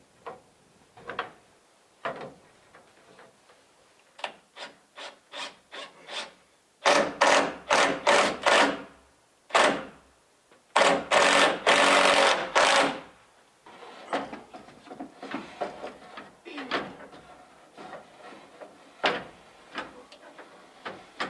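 Wood scraping and rubbing on wood: scattered short scrapes, then a quick run of rasping strokes about three a second, and a longer scrape about eleven seconds in.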